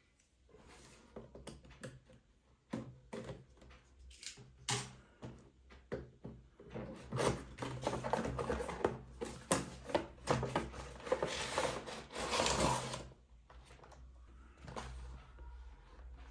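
Packaging and a plastic toy being handled: irregular clicks, taps and rustling, growing busier and louder in the middle before easing off again.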